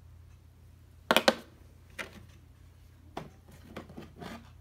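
Objects being handled and set down: a couple of sharp knocks about a second in, then a few lighter taps and clatters.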